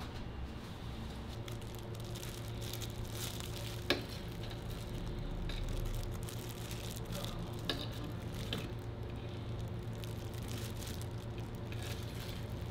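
Food-stall ambience: a steady low hum with a light hiss, broken by a few light clicks and taps as fruit is placed into a crepe cone, with one sharp click about four seconds in.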